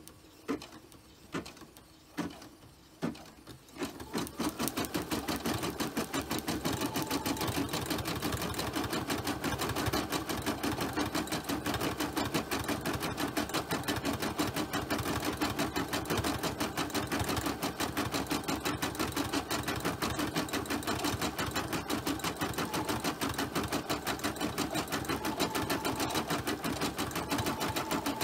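Home embroidery machine starting to stitch: a handful of slow, separate needle strokes, then about four seconds in it speeds up to a steady, rapid stitching rhythm that keeps on.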